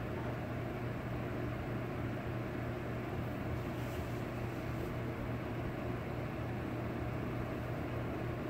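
Steady low hum with an even hiss, unchanging throughout: room background noise such as a fan or appliance running.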